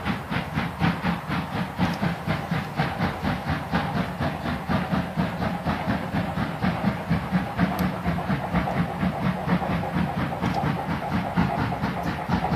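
Steam locomotive approaching under power, its exhaust chuffing in a rapid, even beat of about five a second.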